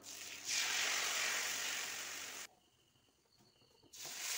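Sizzling hiss as batter is ladled onto a hot oiled pan, cutting off abruptly about two and a half seconds in. After a short quiet gap, another sizzle starts near the end as liquid is poured into a hot wok of fried spices.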